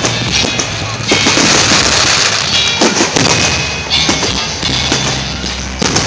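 Fireworks going off in quick succession, many sharp bangs and crackles, over loud music.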